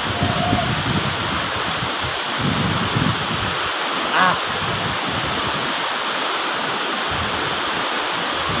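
Waterfall rushing steadily, an even roar of falling water with no breaks. A man's voice gives a brief "ah" about four seconds in.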